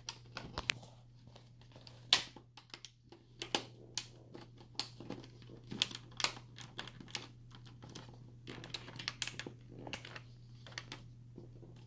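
Irregular clicks and taps of a laptop's plastic screen housing and hinge being pressed and shifted by hand to line up the screw holes, over a steady low hum.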